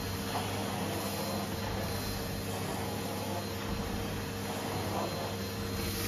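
Numatic Henry Xtra tub vacuum cleaner running steadily with its combination floor tool pushed back and forth over carpet, sucking up spilled porridge oats. The sound swells and eases about every second and a half with the strokes over a constant motor hum.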